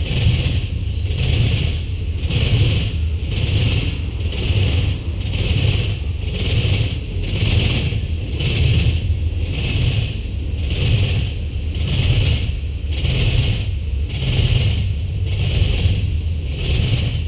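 Freight train cars rolling past close by: a steady low rumble of wheels on rail, with a high-pitched pulse repeating evenly about every 0.6 s.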